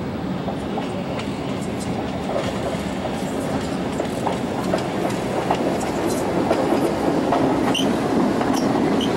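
Tandy Center Subway's electric rail car running along the track toward and past, growing steadily louder as it nears. The wheels click over the rail joints, with sharper clicks near the end as it goes by.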